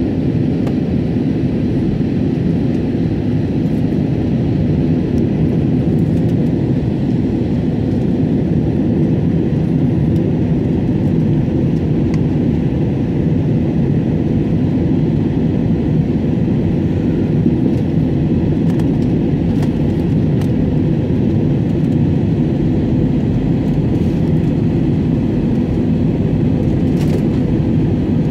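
Airbus A320 cabin noise on descent: a steady, loud drone of the jet engines and the airflow over the fuselage, heard from inside the passenger cabin by the window.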